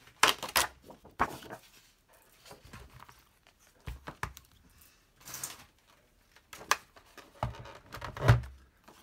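Paper rustling and crinkling as sheets and a paper pad are handled on a wooden table, with scattered light knocks. A heavier thump near the end as a paper trimmer is set down on the table.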